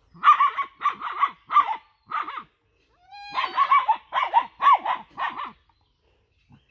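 Dog barking in two rapid runs of short, sharp barks, with a pause of about a second between them, squaring off against goats.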